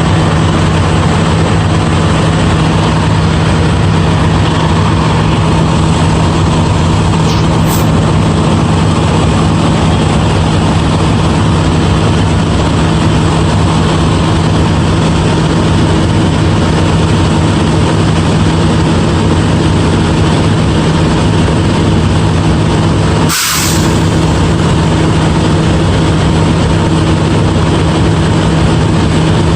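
Steady hum of a diesel engine running at an even speed, with one short click or dropout about 23 seconds in.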